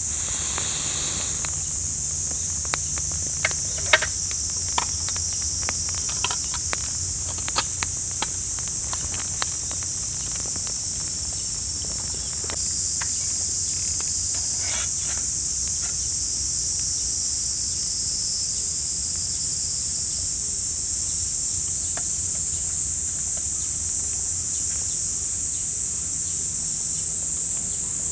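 A steady high-pitched chorus of summer insects shrilling without a break, growing slightly louder about halfway through. Scattered small clicks and taps come in the first ten seconds.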